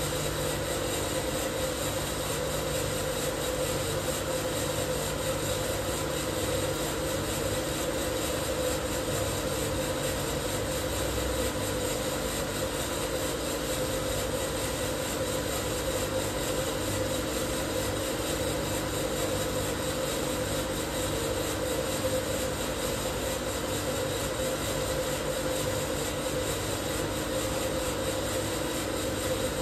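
Probat Probatone P12 Series 2 12 kg drum coffee roaster running steadily mid-roast: a constant machine hum from the turning drum, fan and burner, with a faint regular pulsing low down.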